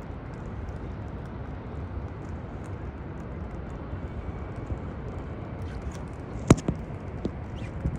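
City ambience in the rain: a steady low rumble with scattered light ticks, and one sharp knock about six and a half seconds in, the loudest sound, followed by a fainter one.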